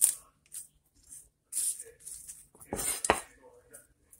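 Kitchen knife chopping peeled garlic cloves on a cutting board: several separate cuts, the loudest about three seconds in.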